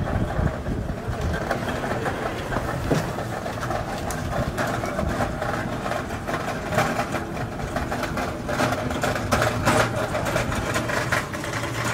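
Thick cake batter being stirred with a wooden paddle in a large aluminium pot: irregular wet slapping and scraping strokes, roughly one a second, over a steady low hum.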